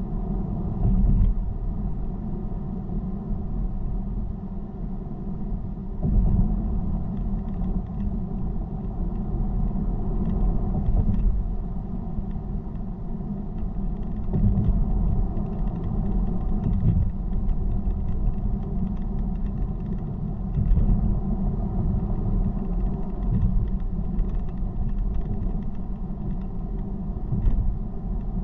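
Steady low rumble of a car driving: engine and tyre road noise, swelling louder briefly a few times.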